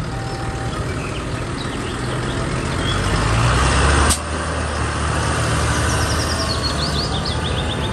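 Diesel engine of a large Fendt tractor running as it drives, a steady low hum that builds to its loudest about four seconds in, then drops suddenly with a click. Birds chirp faintly near the end.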